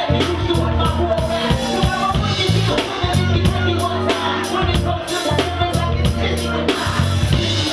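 Live hip-hop performance: a female rapper on a handheld microphone over a loud, steady beat with heavy bass and evenly repeating hi-hat strokes, through a club PA.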